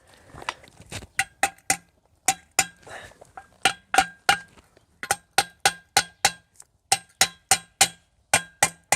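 Hammer blows on steel wedge anchor bolts, driving them down into holes drilled in concrete. The strikes come in short runs of about three a second, each with a metallic ring.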